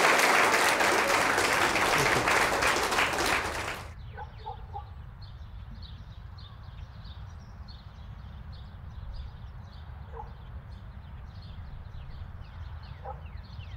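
Audience applauding, cut off abruptly about four seconds in. After it, faint scattered high chirps over a low hum.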